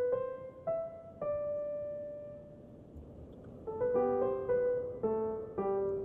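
Background music on piano: a few slow single notes, a lull, then a quicker run of notes from about three and a half seconds in.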